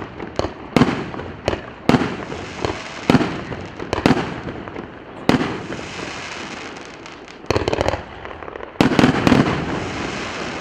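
A 36-shot, 1.5-inch consumer firework cake firing: sharp bangs about once a second, with two bursts of rapid crackling near the end that then die away.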